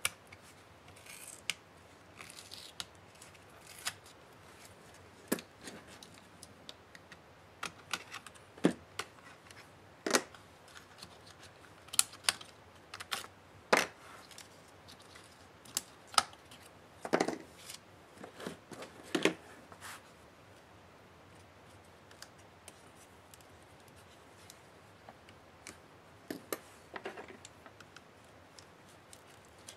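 Irregular small clicks and taps of plastic and metal parts inside an opened laptop being handled, unclipped and set down, a dozen or so sharper clicks among softer rustles.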